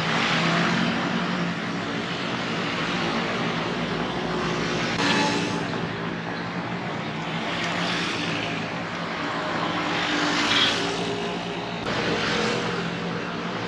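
City street traffic of cars and motor scooters passing: a steady mix of engine hum and tyre noise that swells several times as vehicles go by.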